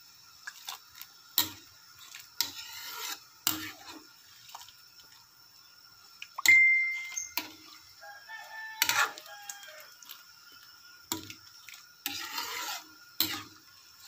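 Metal spatula scraping and knocking against a steel wok as shrimp simmering in coconut milk are stirred: irregular scrapes and clinks, with one loud ringing clang about six and a half seconds in.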